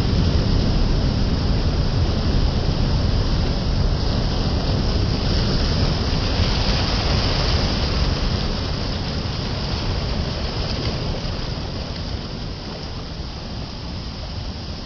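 Steady rushing noise of sea surf and wind on the shore, heavy in the low end. It fades gradually over the second half.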